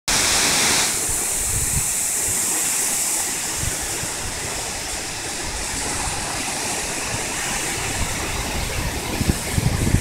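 Waterfall: a steady rush of water pouring over rock ledges into a pool. A few low thumps come in near the end.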